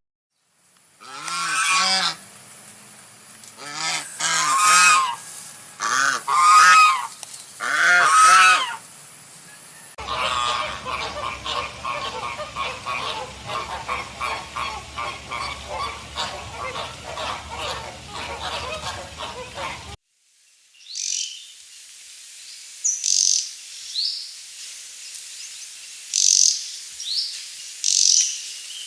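Animal calls in three edited sections: first about five loud, drawn-out pitched calls, then a dense, steady chatter of many calls together, then scattered high, short chirps.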